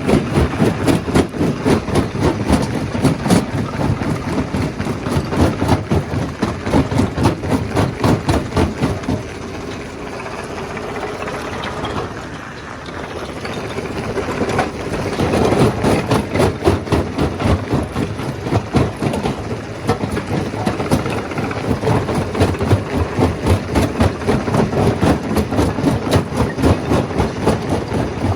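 Stone crusher running, a fast, continuous clatter of rock knocking against the machine over its steady mechanical noise. The clatter thins out and quietens for a few seconds midway, then picks back up.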